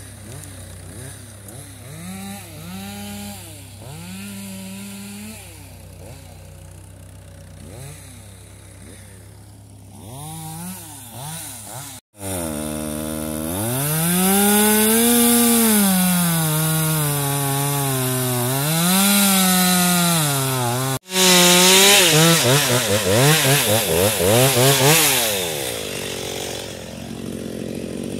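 Chainsaw engine running and being revved up and down over and over, quieter at first and louder after about twelve seconds, with two brief sharp dropouts.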